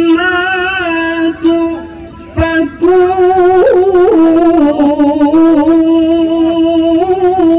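A man's solo Quran recitation in the melodic tilawah style: one voice holding long, wavering ornamented notes on a single breath, with a brief break about two seconds in before the line resumes.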